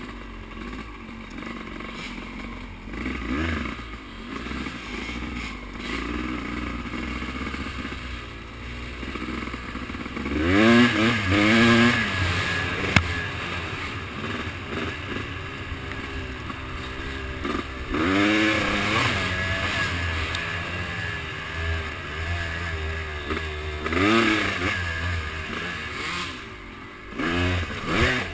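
Off-road vehicle engine running along a trail: steady and quieter at first, then louder, revving up in pitch several times from about a third of the way in.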